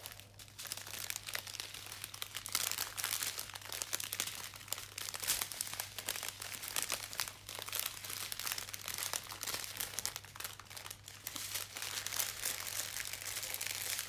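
Plastic packaging of a diamond-painting kit crinkling and rustling as it is handled, a dense, unbroken run of small crackles.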